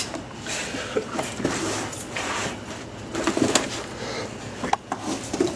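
Scuffling and clothing rustle of two people straining in a wrestling hold, with scattered short knocks and a few brief grunts.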